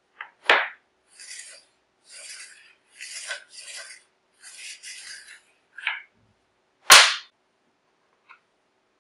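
A short flat metal bar scraped back and forth in about eight short strokes, between two sharp knocks of it being set down on the wooden jig. The second knock, about seven seconds in, is the loudest.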